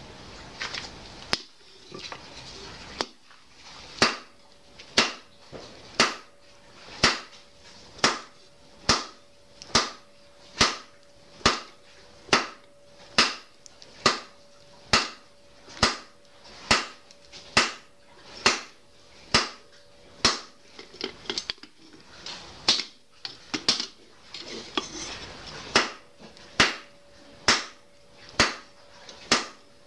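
Hand hammer striking red-hot steel on a round steel anvil, steady blows about once a second, each a sharp clang. The anvil gives a steady ring under the blows. After a couple of lighter strikes, the regular hammering starts a few seconds in.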